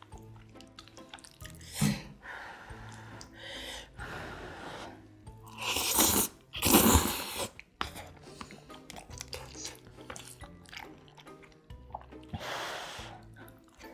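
A person slurping and chewing thick noodles: two loud slurps close together about six seconds in and another near the end, with softer chewing between, over faint background music.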